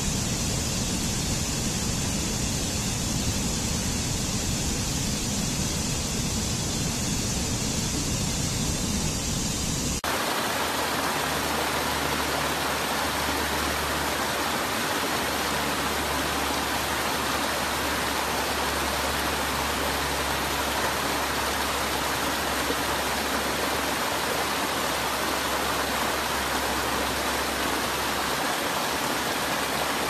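Rushing water of a rocky stream and small waterfalls, a steady full rush. About ten seconds in the sound changes abruptly to a brighter, hissier splash of water over low cascades.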